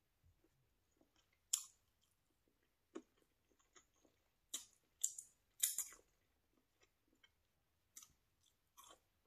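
Close-miked wet mouth sounds from eating hummus off the fingers: short, sharp smacks and sucks, spaced out at first, then three in quick succession about five seconds in, with faint chewing between them.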